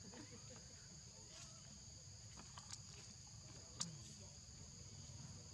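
Steady outdoor insect chorus: two high, even buzzing tones held throughout over a faint low rumble. A few brief clicks, the sharpest just under four seconds in.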